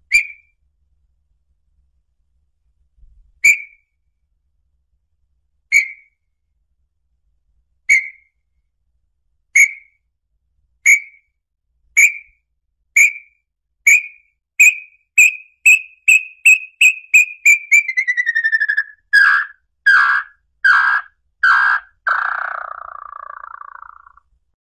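Small-billed tinamou (inhambu-chororó) song, played to attract the bird. It is a series of clear whistled notes, a couple of seconds apart at first, that speed up into a fast run sliding down in pitch. It ends with four louder notes and a trailing trill.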